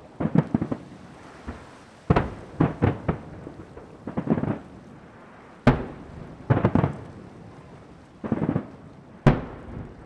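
Aerial fireworks shells bursting in a series of booms, some in quick clusters of two or three, each rumbling away after the bang. Two single sharp bangs stand out, a little past halfway and near the end.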